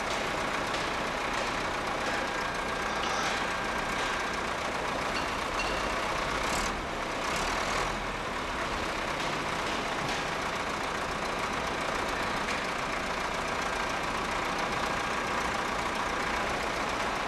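Heavy diesel machinery, wheel loaders and a truck, running steadily, with a couple of short knocks a little past the middle.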